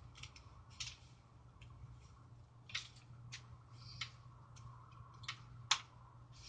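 Faint handling noise: about a dozen small, irregularly spaced clicks and taps, the sharpest a little before the end, over a low steady hum.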